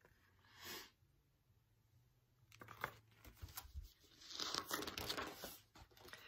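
Faint handling of a picture book: a few soft clicks, then a papery rustle of a page being turned about four to six seconds in.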